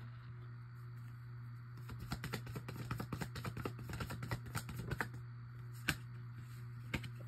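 Tarot cards being handled and shuffled in the hands: a run of quick, light clicks lasting about three seconds, then two sharper clicks near the end.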